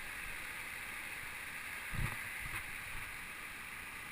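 Steady rush of a waterfall and its stream, with a short low thump about two seconds in.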